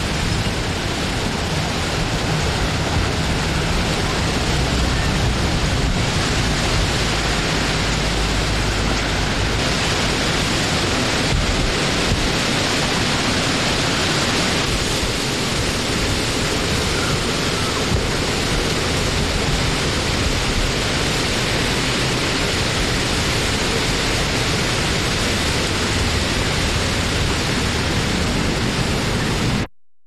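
Steady wind-blowing noise, an even rushing hiss with no gusts or other sounds in it. It swells up over the first moment and cuts off suddenly just before the end.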